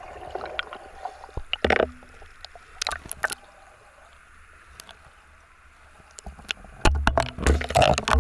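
Scattered knocks with water sloshing, growing louder and busier near the end with low bumps, as of a small boat being moved through water.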